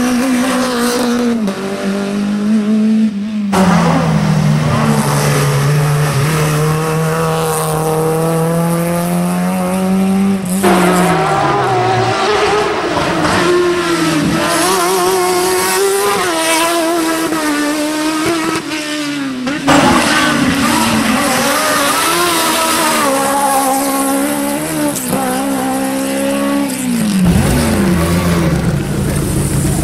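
Slalom racing cars driven hard through a tight hairpin one after another, engines held at high revs and then dropping in pitch as they lift off, with some tyre squeal. The sound cuts abruptly from one car to the next several times.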